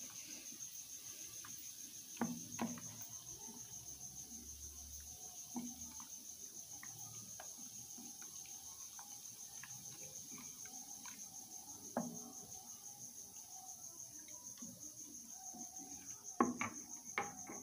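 Wooden spoon stirring foamy liquid in a glass bowl, with a few light knocks of the spoon against the glass. A steady, rapidly pulsing high-pitched chirping trill runs underneath.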